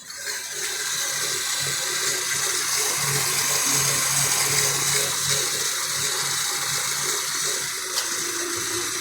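The 3.6-litre V6 of a 2016 Dodge Grand Caravan running, heard up close at the accessory belt drive: a steady, loud rushing whir over a low hum, which starts suddenly. The owner suspects the belt tensioner and a pulley of making the noise, after a new alternator.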